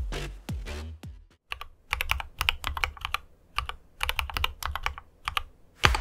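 Electronic music stops about a second in. Short bursts of typing on a mechanical keyboard follow, the keystrokes clacking in quick clusters of several strokes with brief pauses between. A loud falling swoosh comes just before the end.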